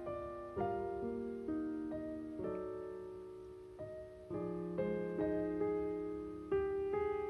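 Soft background piano music, single notes and chords struck one after another and left to fade.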